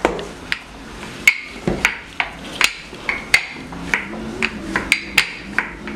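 Wooden rolling pin knocking against a hard countertop while mandazi dough is rolled out: a dozen or so sharp, irregular knocks, about two a second.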